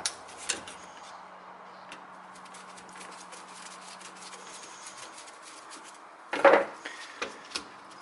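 Screwdriver turning a small screw out of a Ford car's central door lock unit, with faint fine ticking. About six and a half seconds in comes a louder clatter of metal on the wooden bench, followed by two lighter knocks.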